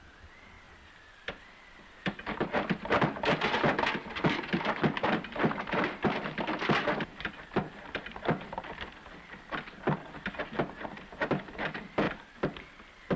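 Hand water pump being worked by its handle: a quick run of clanks and rattles starting about two seconds in and lasting several seconds, then slower scattered knocks.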